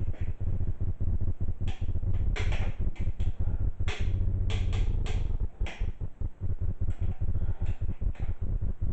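Hand wrench clicking on an engine's connecting-rod bolts while they are torqued: a dozen or so sharp metal clicks at uneven spacing, over a steady low hum.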